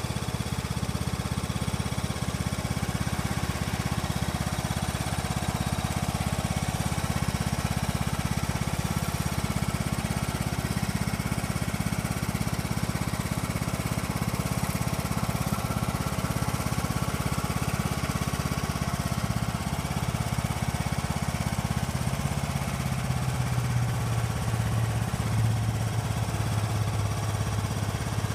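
John Deere LA125 riding lawn mower's engine running steadily while the mower stands still. Its low hum grows stronger in the last few seconds.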